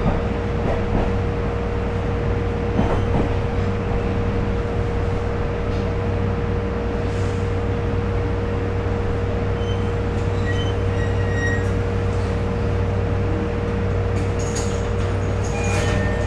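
Interior running sound of a JR Kyushu YC1 series hybrid railcar with Hitachi VVVF traction: a steady low hum under a constant whine, with light clicking joining in near the end.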